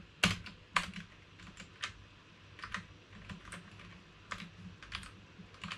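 Typing on a computer keyboard: irregular keystrokes, a quick few near the start, then slower scattered taps.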